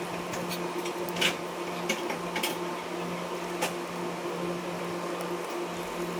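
Steady mechanical hum of a small motor running, with a few short, sharp clicks and taps of small tools.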